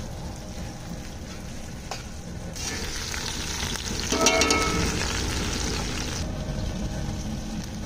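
Fat and meat juices sizzling in a hot pot under a roast lamb leg. The sizzle starts suddenly about two and a half seconds in, swells with a short metallic ring about four seconds in, and cuts off abruptly about six seconds in, over a steady low rumble.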